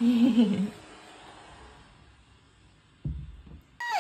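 A toddler's short, drawn-out "ne" (yes) at the start, then quiet room tone. A low thump comes about three seconds in, and near the end a baby's voice starts with a falling pitch.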